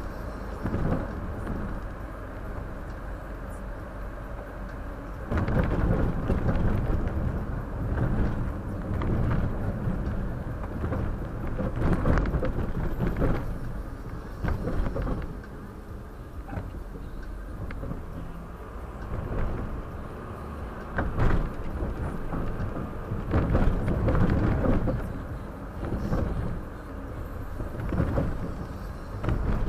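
Car driving on the road, picked up by a dashcam's microphone: a steady low rumble of road and engine noise that swells and eases, with a few short thumps now and then.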